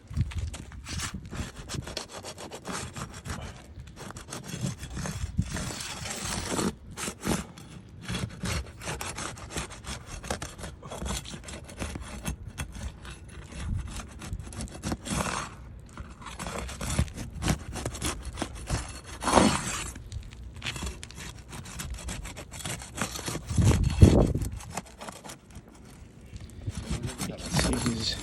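Roof shingles being lifted and pried loose: irregular scraping and rubbing, with a few louder scrapes in the middle and a heavy low bump a few seconds before the end.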